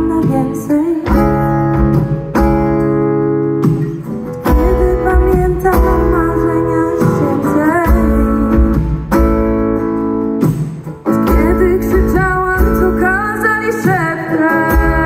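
Live acoustic guitar strummed in a steady rhythm through the venue's sound system, with a voice singing over it at times.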